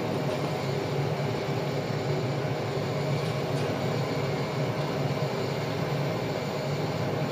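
Mill City Roasters 1 kg drum coffee roaster running: a steady hum and rush of its motor and fan, with no change.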